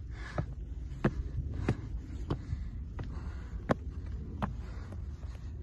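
Footsteps climbing stone steps, a regular tread of about three steps every two seconds, each step a sharp tick, over a steady low rumble.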